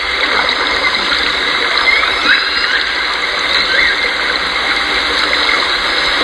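J Pod southern resident killer whales calling: a few faint, short, gliding calls around two seconds in and again near four seconds, over a steady loud hiss-like noise.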